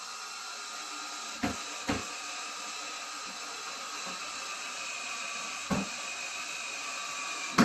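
Power drill driving a long screw into the wall, its motor running with a steady whine, broken by short knocks about one and a half and two seconds in and again near six seconds.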